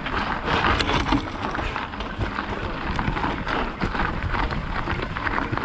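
Mountain bike riding over a rough gravel trail: a steady rush of tyre and wind noise with many small clicks and rattles.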